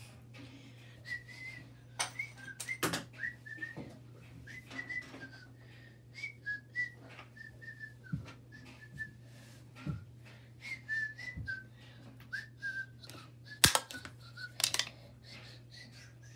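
A person whistling a wandering tune in short, wavering notes, over scattered clicks and knocks of things being handled, with two sharper knocks near the end.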